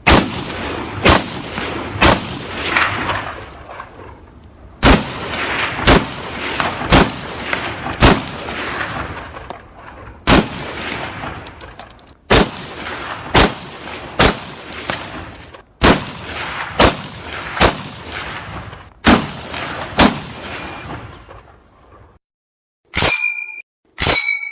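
M1 Garand semi-automatic .30-06 rifle firing single shots about a second apart, in strings with short pauses, each shot leaving a long echoing tail. Near the end come four sharp ringing metallic pings, part of the rifle's reloading.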